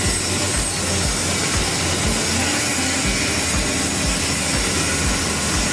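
A power tool running steadily with a constant, even hiss.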